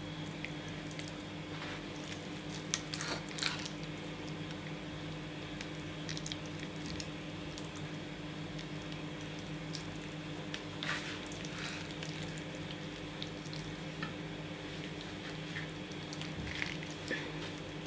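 Hands handling a raw marinated whole chicken and pushing toothpicks through it to close the stuffing: soft, wet squishing and small clicks, in short bunches about 3 seconds in, around 11 seconds, and near the end. A steady electrical hum sits underneath.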